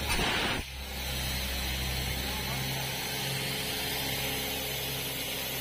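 Borewell drilling rig's engine running steadily with a low hum. A brief loud rushing noise comes in the first half second.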